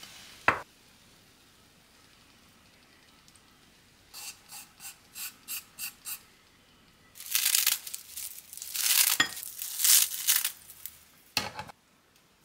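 A ceramic bowl set down on a stone countertop with a sharp clack, then about six light, even taps as ground sesame is knocked off a wooden mortar onto noodles. After that comes dry, crackly rustling of roasted seaweed (gim) being torn over the bowl, and a final small knock.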